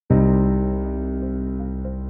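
Background music: a sustained keyboard chord that sets in suddenly and slowly fades.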